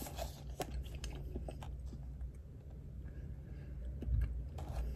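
Someone chewing a mouthful of firm baked cheesecake close to the microphone, with scattered small wet mouth clicks, a little louder about four seconds in.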